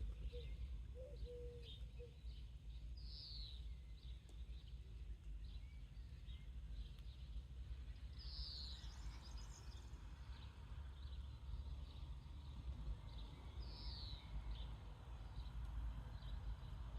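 Quiet rural birdsong: small birds chirping, with one bird repeating a short falling call about every five seconds, and a soft low coo in the first couple of seconds. Underneath is a steady low rumble, with a soft hiss of wind in the trees building from about nine seconds in.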